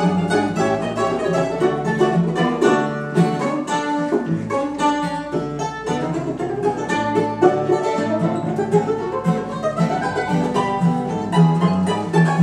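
A plucked-string trio playing a rag: a mandolin-banjo picks the lead melody in quick notes over a second mandolin and a strummed acoustic guitar. A rising run of notes comes about halfway through.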